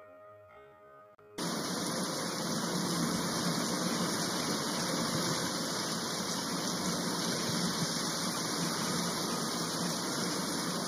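Steady rushing hiss like white noise, switched on suddenly about a second and a half in and held at one even level. It does not rise or fall with the foam, so it is a noise effect laid over the eruption rather than the fizz of the reaction itself.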